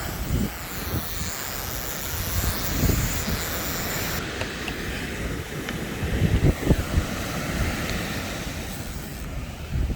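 Steady roar of wind and surf, with gusts buffeting the microphone in low thumps several times.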